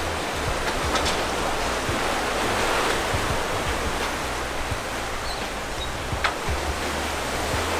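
Steady rushing of wind and sea surf, with a few faint light clicks.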